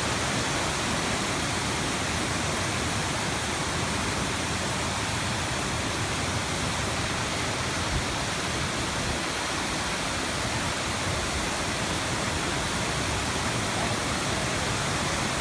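Rainbow Falls, a large waterfall, rushing steadily and heard from close by at its top.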